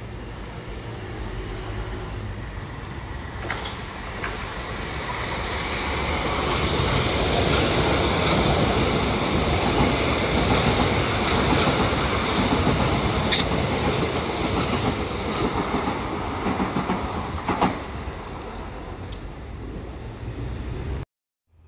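Electric multiple-unit train running past the platform at speed: a rush of wheels on rails that builds, stays loud for about ten seconds and then fades as it goes, with a few sharp clicks of wheels over rail joints. The sound cuts off suddenly near the end.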